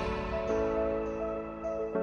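Instrumental background music: held notes, with the chord changing about half a second in and again near the end.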